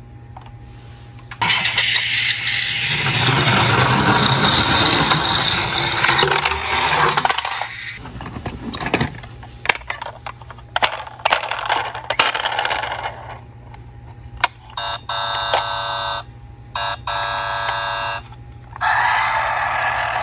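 Electronic sound effects from battery-powered toy emergency vehicles, played through their small built-in speakers. A long noisy stretch ends in a falling glide, then plastic toys click and clatter against each other in the box. Near the end a toy police car's sound chip plays buzzy electronic tones in short blocks.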